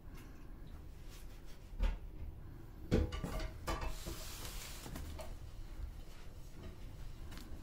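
Household knocks and clatters: two sharp knocks about a second apart, then a few smaller clicks and a short hiss.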